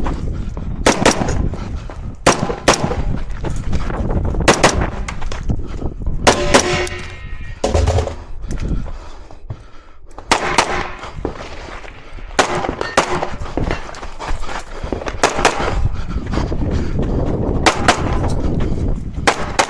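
Competition gunfire: sharp shots fired mostly in quick pairs and short strings, with a brief lull about halfway through. After one string a steel target rings.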